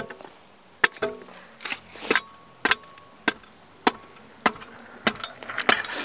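Cracked aluminium Apex Pro scooter deck being banged and stamped against concrete: a steady run of sharp metal clanks, roughly one every half second, some ringing briefly, turning into a rattling clatter near the end. The deck is already split by the axle.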